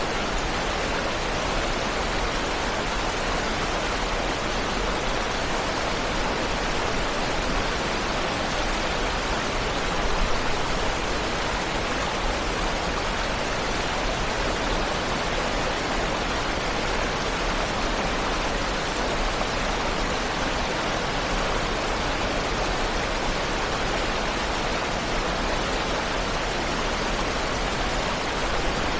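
Waterfall rushing: a steady, even wash of falling water with no change over time.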